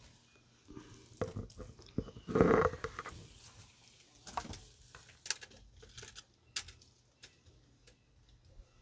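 Soft rustling and scattered small clicks and taps of hands lifting sliced onions off a paper towel and dropping them into a foil-lined cast iron Dutch oven onto sliced potatoes. There is one louder, brief noise about two and a half seconds in.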